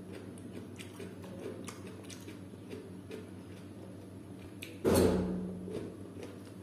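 Quiet eating sounds, faint small clicks of fingers picking through rice and food, then about five seconds in a single loud thump, as of a hand or object knocking the wooden table, fading over about a second.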